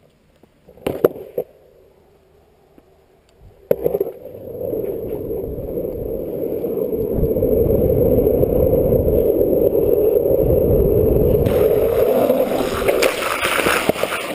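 A few knocks as the longboard is set down and stepped on, then the steady roar of its wheels rolling on asphalt, mixed with wind on a helmet camera. The roar builds over a few seconds as speed picks up, and a brighter hiss joins near the end.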